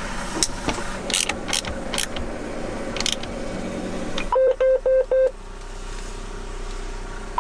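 A handful of sharp clicks and knocks as a John Deere StarFire GPS receiver is fitted to its mount, then four quick beeps from the tractor's in-cab display about four seconds in as it powers up and looks for the receiver, followed by a steady hum.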